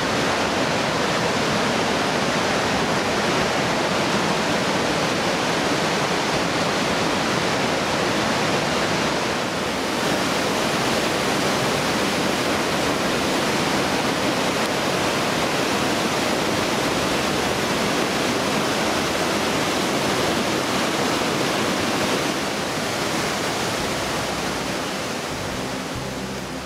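The Aare river's white water rushing through a narrow rock gorge and pouring over boulders: a steady, dense roar of water that eases slightly in the last few seconds.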